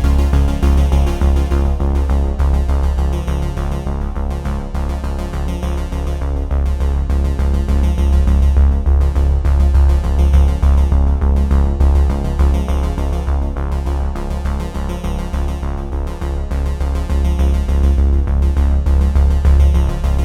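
Background music: electronic, synthesizer-led, with a steady pulsing bass beat.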